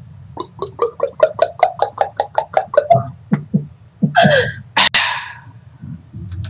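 Laughter: a fast run of short voiced "ha" pulses, about seven a second, then a few higher laughing cries and a breathy outburst about five seconds in.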